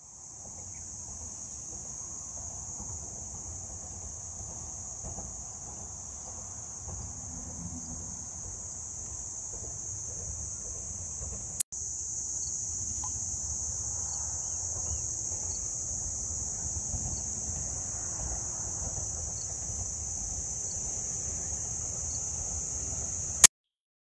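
A steady, high-pitched chorus of insects shrilling over a low rumble. It cuts out for an instant with a click about halfway through, then goes on slightly louder.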